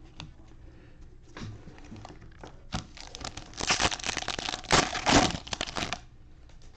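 Plastic trading-card pack wrapper being crinkled and torn open: a few light rustles and ticks at first, then a dense spell of loud crinkling from about halfway through that stops near the end.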